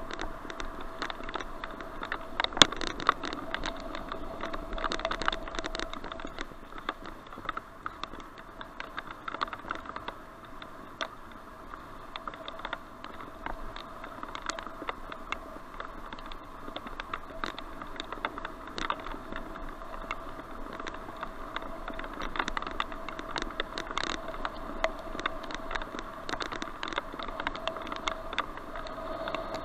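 Bicycle riding over a dirt path, heard through a helmet-mounted action camera: steady rolling and wind noise with many irregular clicks and rattles, the sharpest about two and a half seconds in, over a faint steady whine.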